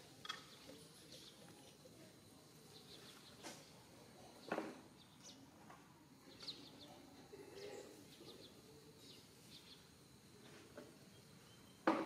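Faint outdoor ambience with scattered short, high bird chirps, broken by a few sharp knocks, the loudest just before the end.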